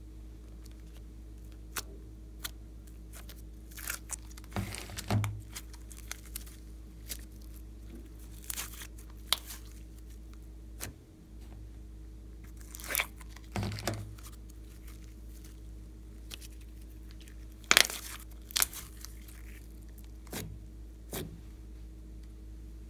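Thick glossy slime being peeled out of a plastic container and laid into a glass dish: irregular sticky crackles, squishes and sharp snaps, the loudest a little over three-quarters of the way through.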